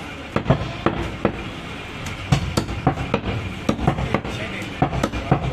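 A heavy butcher's knife chopping goat meat on a wooden chopping block: a string of sharp, irregular chops, about two or three a second.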